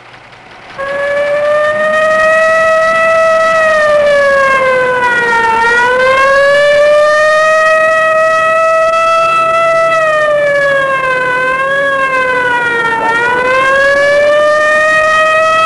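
Police car siren wailing loudly, starting about a second in. Its pitch holds high, then sags and climbs back three times: the patrol car answering an emergency call.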